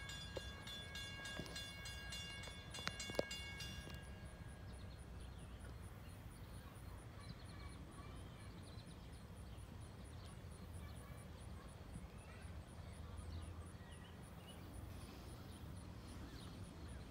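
Quiet trackside ambience: a steady low rumble with faint scattered bird chirps, a train still far off. In the first four seconds a cluster of high steady tones sounds with a few sharp clicks, then cuts off.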